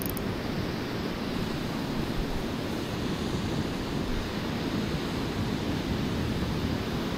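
Steady, even rush of water pouring out of a dam spillway into the pool below.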